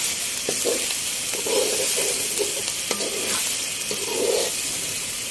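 Chicken pieces frying in hot oil with onions and ginger-garlic paste in a pot, sizzling steadily, as a spatula scrapes and stirs through them in repeated strokes. A couple of sharp clicks come about half a second in and near three seconds.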